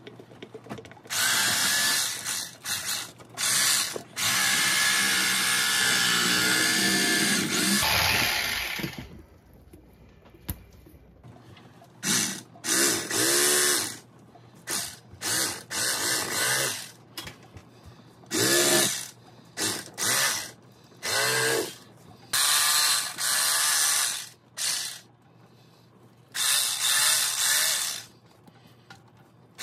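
Electric fillet knife running in bursts as it cuts through a walleye. It runs for two long stretches of a few seconds each, then is switched on and off in many short bursts, its pitch rising and falling as it starts and stops.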